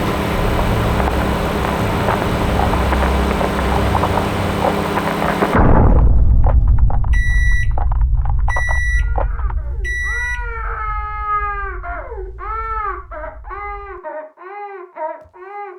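A loud, steady rumbling hum cuts off abruptly about five seconds in. Then a microwave oven beeps three times, evenly spaced, as its timer ends, and a newborn starts crying in repeated rising-and-falling wails that come quicker and quicker.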